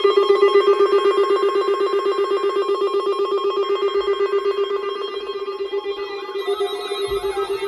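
Weather radio alert tone: a loud electronic tone that warbles rapidly at one steady pitch, signalling the weekly test of the warning alarm. Soft guitar-like music notes come in near the end.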